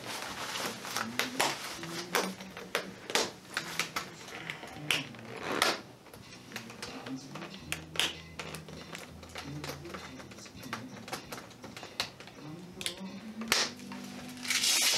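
Irregular clicks and taps of a plastic ski boot's shell, buckles and cuff strap being handled and adjusted by hand, with a longer rasp near the end.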